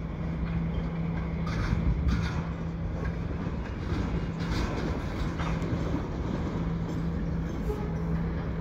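Freight cars, a lumber-loaded centerbeam flat car and tank cars, rolling slowly backward along yard track. The wheels clack over rail joints several times, separate knocks about a second and a half, two, four and a half and five and a half seconds in, over a steady low hum and rumble.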